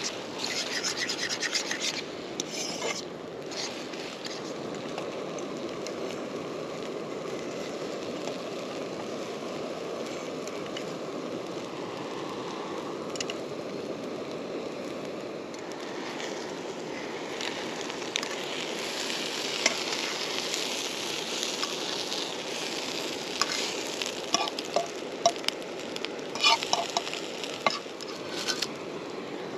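Beaten eggs and porcini mushrooms sizzling in butter in a frying pan, stirred with a metal fork. The fork clicks and scrapes against the pan near the start and several times in the last few seconds.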